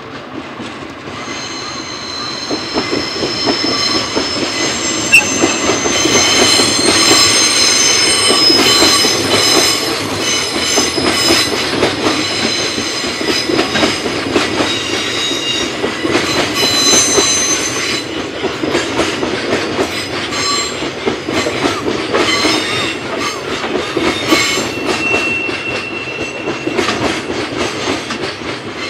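Container freight train of flat wagons rolling past on a curve behind a DD16 diesel locomotive. A continuous rumble runs under repeated clicks of wheels over rail joints. High-pitched wheel squeal sets in about a second in, comes and goes through the first two-thirds, and returns briefly later.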